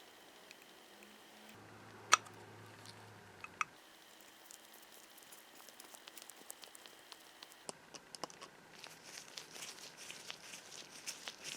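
Quiet handling sounds at a workbench: a sharp click about two seconds in, a scatter of light ticks, then a denser rustling, crinkling patter over the last few seconds.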